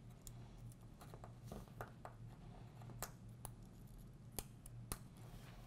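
Faint, scattered small clicks and scrapes of metal tweezers against an iPod Touch's frame and adhesive strip as the adhesive backing is picked off, the sharpest clicks in the second half, over a low steady hum.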